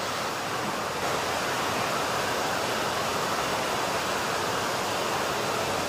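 Heavy rain falling, a steady loud hiss.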